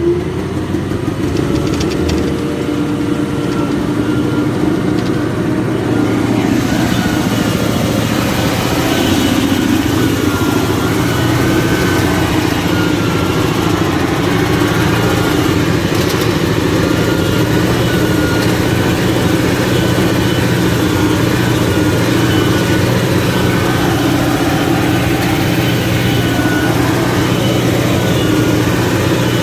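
Caterpillar 988F2 wheel loader's diesel engine running steadily, growing louder about six seconds in.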